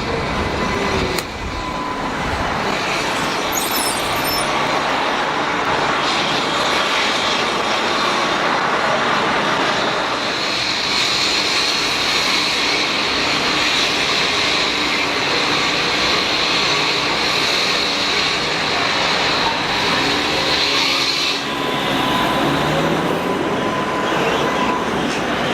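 Tatra T3 tram running on street track: a steady rolling rumble, with a high, steady whine above it from about ten seconds in until about twenty-one seconds in.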